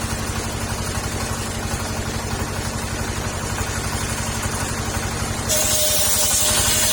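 Petrol engine driving a circular saw bench, running steadily with a fast pulsing beat while the blade spins free. About five and a half seconds in, the blade starts cutting sengon wood, and a louder hissing cut with a thin steady whine rises over the engine.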